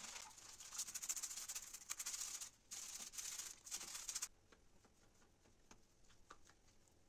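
A toothbrush scrubbing the wet, soapy mesh of a vacuum cleaner's dust filter: quick, soft scratchy strokes with a short break about halfway. The brushing stops a little past the middle, leaving only a few faint taps.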